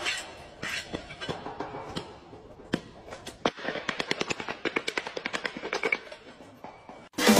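Light knocks of a hand-held block tapped on freshly laid floor tiles to bed them into the adhesive: a few scattered knocks, then a quick run of taps, several a second, about halfway in.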